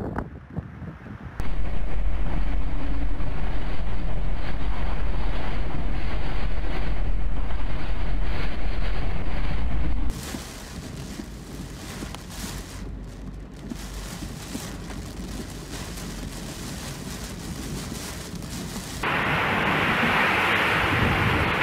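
Typhoon-force wind and driving rain, the gusts buffeting the microphone with a heavy low rumble. The sound changes sharply several times as the footage cuts: the rumble drops to a quieter hiss about ten seconds in, and near the end a harsher, louder hiss of wind-driven rain takes over.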